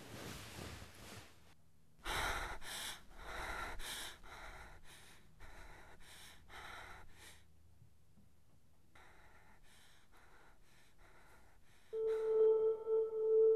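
A woman gasps and pants heavily in a quick run of breaths, which then grow quieter and slower. Near the end a sustained ambient music tone comes in.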